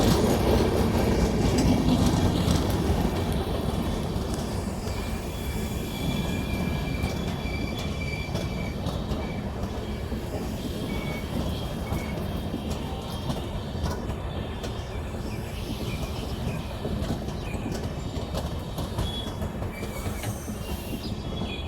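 LHB passenger coaches rolling past on the track, the rumble of wheels on rail slowly fading, with short high-pitched wheel squeals now and then.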